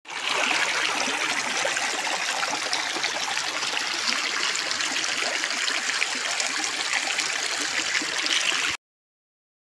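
Running water of a stream, a steady, even rush that cuts off suddenly near the end.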